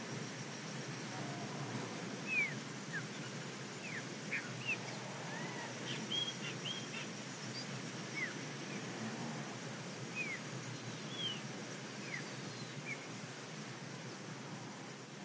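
Outdoor ambience with birds chirping: about a dozen short, sliding chirps, scattered irregularly over a steady background hiss.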